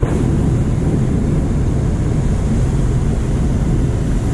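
Hot air balloon's propane burner firing: a loud, steady roar that starts suddenly and keeps going.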